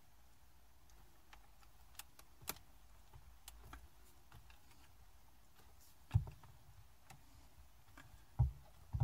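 Scattered light plastic clicks and taps as hands press and adjust a magnetic phone holder in a car dashboard's cassette slot, with a few duller knocks in the second half.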